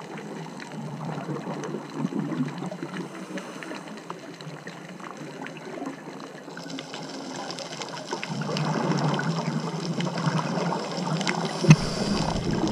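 Underwater ambience while scuba diving: a steady bubbly rush of water sprinkled with many faint clicks. It grows louder about eight seconds in, with a sharp knock near the end.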